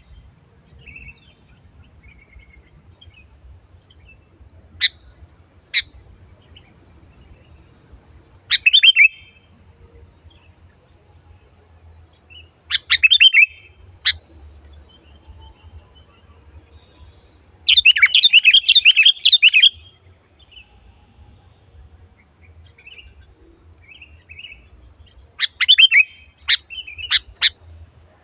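Sooty-headed bulbul singing loud, clear short phrases every few seconds, with a longer run of rapid notes about two-thirds of the way through and a quick series of sharp notes near the end.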